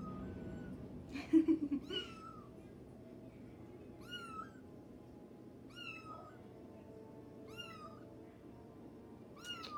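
Kitten meowing over and over, high-pitched calls about every two seconds, each rising then falling in pitch. A brief louder, lower sound comes about a second in.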